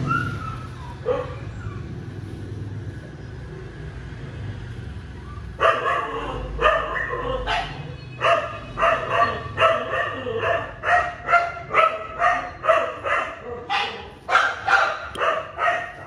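A dog barking over and over, about twenty barks at roughly two a second, starting about five and a half seconds in.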